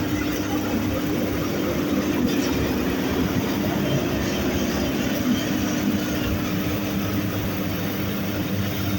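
Tosun Vega hay grinder (bale shredder) running steadily: a constant hum over a dense rushing, rattling noise.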